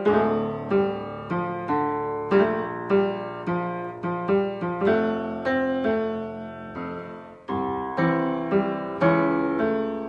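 Solo piano playing an intro of struck chords and notes, about two a second, each decaying before the next, with the last chord left ringing near the end.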